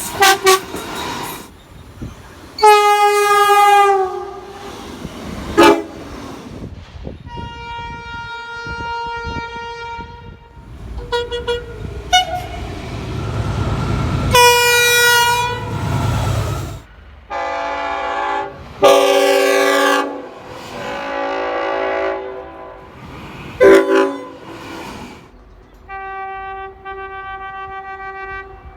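Train horns sounding one after another, a different horn chord in each short cut: some short blasts, some held for two or three seconds, a few falling in pitch as the train goes by. A low rumble of a passing train comes in the middle.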